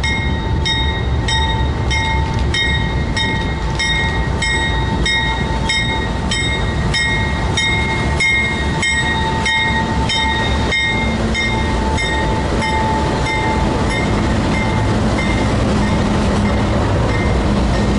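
Two GE C40-8W diesel locomotives and the first freight cars rumbling past, with a bell ringing about twice a second through most of it.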